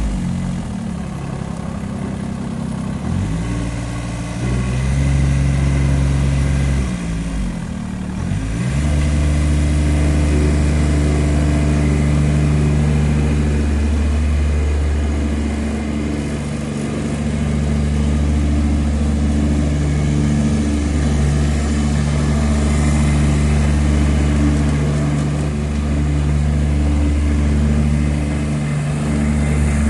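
Kubota GR2100 ride-on mower's three-cylinder diesel engine running. Its pitch shifts up and down over the first nine seconds or so, then holds a steadier speed with a few brief dips.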